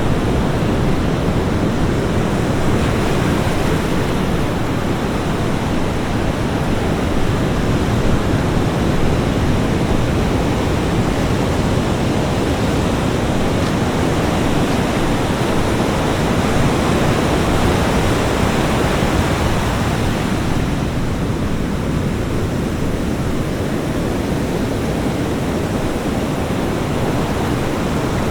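Ocean surf on a beach: waves breaking and washing in a continuous rushing wash that swells and eases only slightly.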